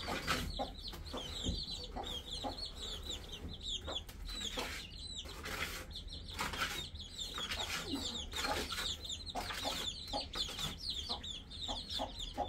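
Chickens clucking, with many short, high chirps repeating throughout and scattered knocks and clatters.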